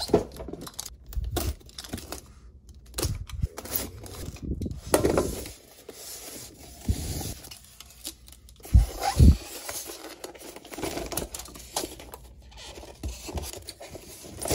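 Styrofoam packing being handled and pulled apart: foam rubbing and scraping, with plastic wrap crinkling and two short dull thumps a little past halfway.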